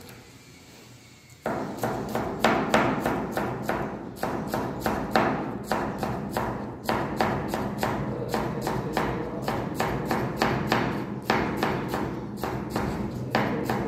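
Chef's knife chopping cabbage on a wooden cutting board: a quick, steady run of knocks, about four a second, starting about a second and a half in.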